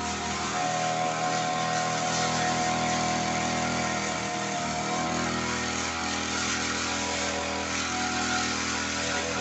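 Brush cutter's small petrol engine running at high speed as the line head cuts grass. The engine note steps up about half a second in and shifts again around the middle.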